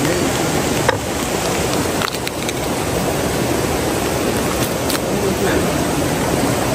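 Steady hiss of falling rain. A few sharp clicks come through it from a knife scraping and cutting at a goat's jaw bone.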